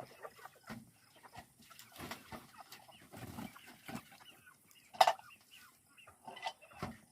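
Chickens clucking, with a single sharp knock about five seconds in.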